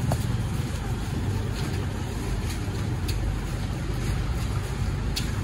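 Steady low rumble of vehicle engines from nearby street traffic, with a few faint clicks.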